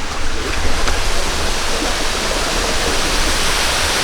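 Waterfall rushing, a steady, loud roar of falling water with a deep rumble underneath.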